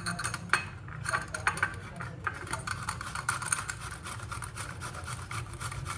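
Fresh ginger being grated on the finest side of a hand grater: quick, repeated scraping strokes over a steady low hum.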